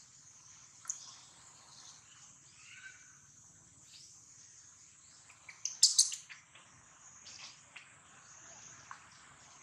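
Birds chirping over a steady, high insect drone, with a brief cluster of loud, shrill squeaks about six seconds in.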